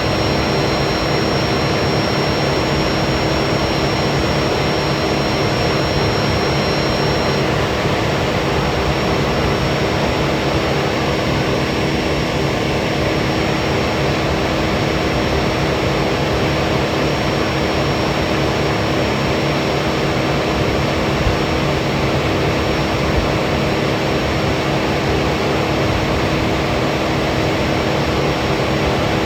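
Heavy machinery engine running in a steady, unbroken drone; a faint high whine in it stops about a quarter of the way through.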